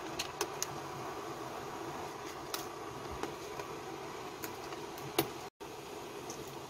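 Steady fan-like hum in a kitchen, with a few light clicks and taps as fish cake skewers and gloved hands knock against a pot of steaming mussel soup. The sound cuts out for an instant just after five seconds.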